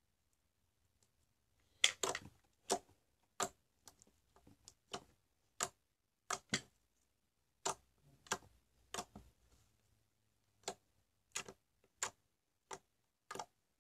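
Slime clicking and popping as fingers press and squeeze it against a wooden tabletop: a series of sharp clicks, about one or two a second, starting about two seconds in.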